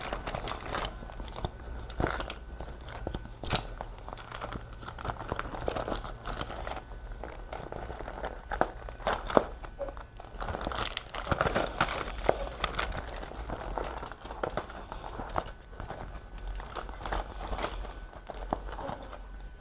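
Rustling and crinkling with scattered clicks and knocks as small objects are handled and moved about on a work surface, over a faint steady hum.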